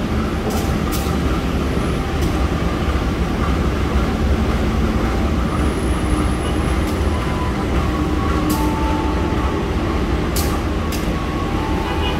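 Diesel-electric locomotive idling with a steady low engine drone while its train stands in the station. A few brief sharp clicks are scattered through.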